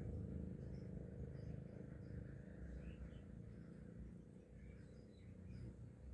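Faint, scattered bird chirps over a low, steady outdoor rumble.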